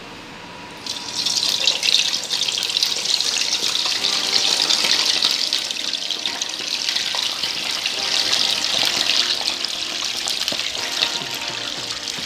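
Poached, drained chicken pieces going into hot oil in a frying pan and sizzling. The sizzle starts suddenly about a second in and then carries on as an even, steady hiss while the chicken fries.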